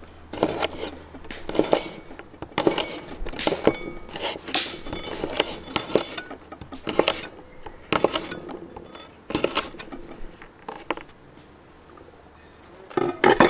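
Broad cleaver-style chef's knife chopping a thin dried sausage into rounds on a bamboo cutting board: irregular knocks of the blade hitting the wood, about one or two a second. The chopping pauses briefly, followed by a louder cluster of knocks near the end.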